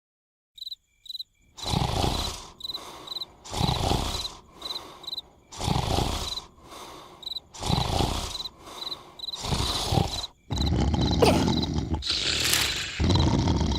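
Cartoon character snoring in loud, drawn-out snores about every two seconds, with crickets chirping in the background. From about ten seconds in, a louder, continuous noise takes over.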